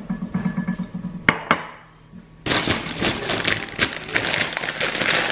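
A ceramic bowl knocks twice on a stone countertop just over a second in. Then, from about halfway, crisps pour from a crisp packet into the bowl with a dense, crackling rustle that is the loudest sound here.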